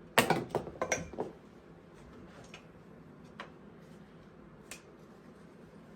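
Metal parts being handled: a quick run of sharp clinks and clanks in the first second, then a few single ticks.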